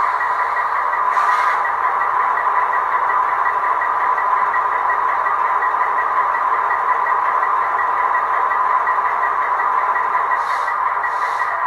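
Model diesel locomotive's sound decoder playing a GE FDL-16 prime mover running steadily, heard through the model's small speaker, with a faint even beat. Short hisses break in about a second in and twice near the end.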